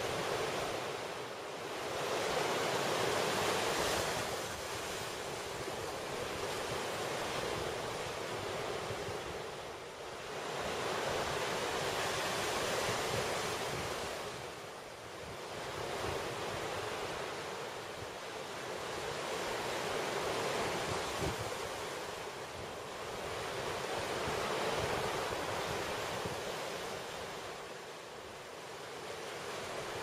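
Sea surf washing over a rocky shore, the hiss of the water swelling and fading every several seconds.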